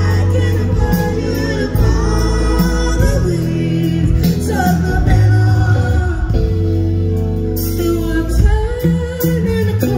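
Live band playing a song loud, with heavy bass and a woman singing lead, heard from within the crowd.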